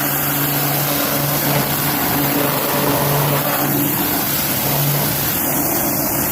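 AR Blue 390SS electric pressure washer running: a steady hiss of the water jet spraying a lawn mower deck, over a pump-motor hum that wavers in and out.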